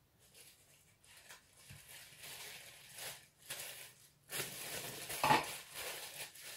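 Cellophane bag crinkling and rustling as a ball of pastry dough is wrapped in it, with a louder crinkle about five seconds in.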